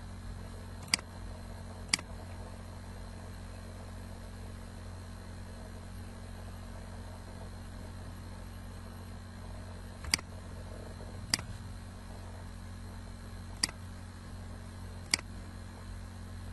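Six sharp computer mouse clicks in loose pairs, each pair one to one and a half seconds apart, over a steady low electrical hum and hiss.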